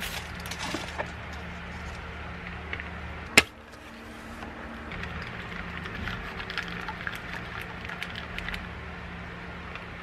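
Plastic straw being unwrapped and punched through the sealed film lid of a plastic drink cup, with one sharp pop about three and a half seconds in, then light plastic crinkling and clicking as the cup is handled.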